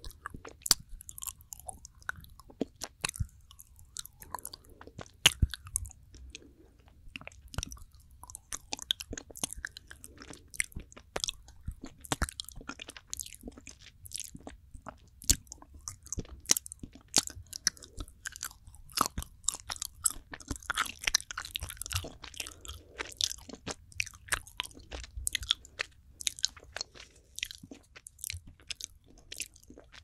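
Close-up mouth sounds of soft, fudgy planet chocolate being chewed and rolled in the mouth: a dense, irregular run of wet clicks and smacks, several a second.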